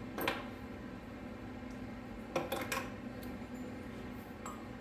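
A few light clicks and rustles of hands working a rubber hose at a brass barb fitting, over a steady low hum of room tone.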